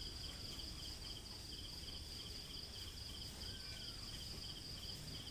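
Night insects such as crickets chirping: a steady high trill with a second, slightly lower chirp pulsing about three times a second.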